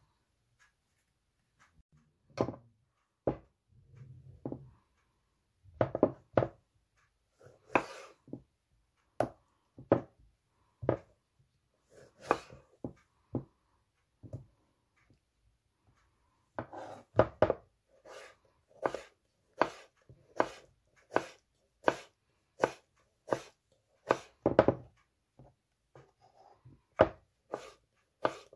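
Kitchen knife cutting tomatoes on a wooden cutting board: separate knocks of the blade on the board, sparse and irregular at first, then a steady run of a little more than one a second through the second half.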